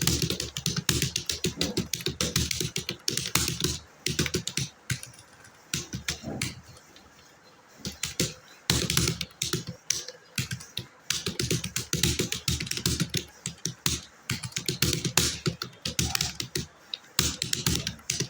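Fast typing on a computer keyboard at about 60 words per minute: a rapid, uneven run of key clicks with a pause of a couple of seconds near the middle.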